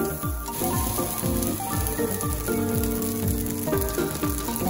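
Spaghetti and onion slices sizzling on a hot teppanyaki iron griddle as spaghetti Napolitan is fried. Background music with a steady beat plays underneath.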